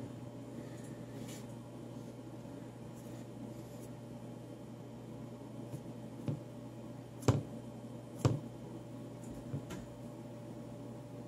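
Fingertip taps on a smartphone touchscreen: a handful of short light taps, the two loudest about a second apart after the middle, over a steady low hum.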